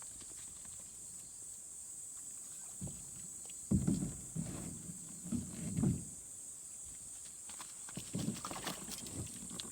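Steady high insect chirring, with soft bursts of water sloshing and splashing about four seconds in and again near the end.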